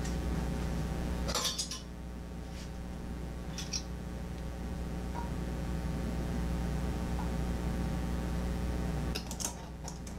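Metal canning lids and a glass canning jar clinking and clattering as they are handled: a clatter about a second and a half in, a short one near four seconds, a couple of small ticks, and a cluster of clinks near the end, over a steady low hum.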